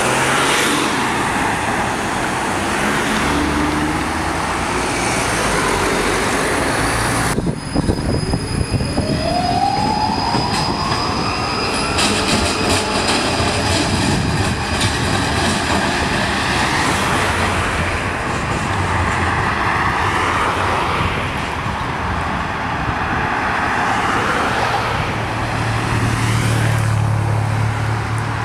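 Articulated low-floor electric tram running on street rails, with a steady rumble of wheels and body. About seven seconds in the sound cuts and a tram pulls away, its motors giving a rising whine, with steady high-pitched tones above. Near the end a low engine hum from road traffic comes in.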